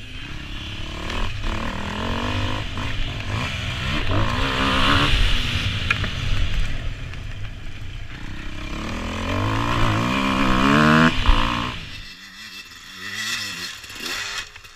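Enduro motorcycle engine revving up and down as it is ridden, its pitch climbing and falling several times; about twelve seconds in it drops away to a much quieter level.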